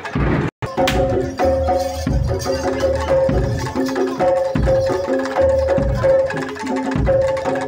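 Live Indonesian traditional percussion music: hand drums beating a steady rhythm under held and repeated melodic notes. The sound cuts out for an instant about half a second in.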